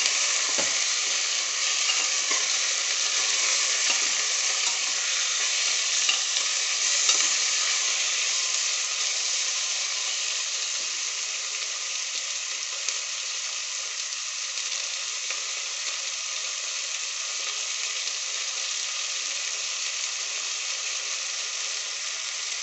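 Raw chicken pieces with fried onions sizzling steadily in hot oil in a pressure cooker. For the first several seconds a spatula stirs and scrapes the pieces around the pot, and after that there is only the sizzle.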